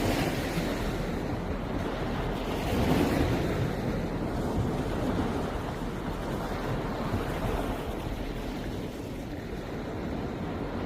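Sea waves washing onto the shore in a steady rush that swells loudest about three seconds in, with wind rumbling on the microphone.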